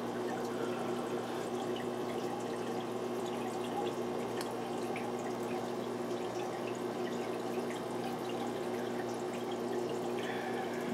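Aquarium filter running: a steady trickle and drip of water falling back into the tank, over a steady low hum.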